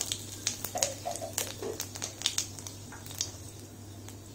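Cumin seeds and dried red chilli spluttering in hot mustard oil in a steel kadai: scattered sharp crackles and pops, thick for the first two seconds or so and thinning out towards the end.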